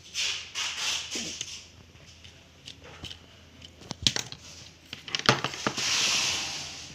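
Short hissing spray bursts from a WD-40 aerosol can, several in quick succession and then one longer burst near the end, applied to a laptop cooling fan. Sharp clicks and taps from handling the parts come in between.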